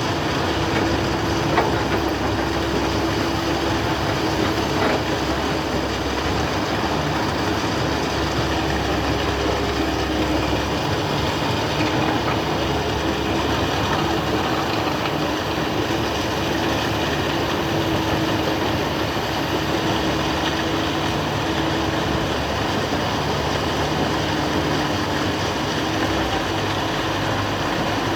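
Excavator's diesel engine running steadily, with a constant whine over the engine noise and a few faint clicks.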